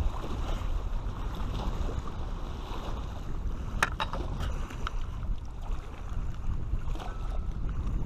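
Wind buffeting the camera's microphone, a steady low rumble, with a few sharp clicks about four seconds in.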